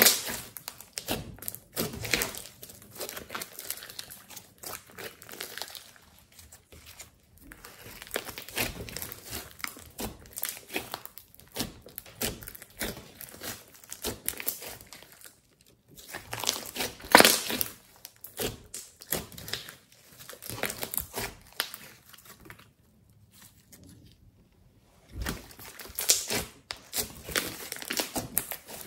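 Hands kneading and squeezing glossy clay slime: irregular sticky crackling and squelching. The sound comes in spells with short pauses, the loudest a little past halfway.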